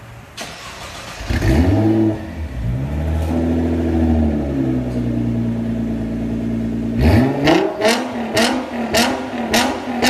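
Nissan GT-R R35 NISMO's twin-turbo V6 through an Armytrix aftermarket exhaust starting up about a second in, flaring and then settling to a steady idle that eases down in pitch. From about seven seconds in it is blipped in quick revs with sharp cracks among them.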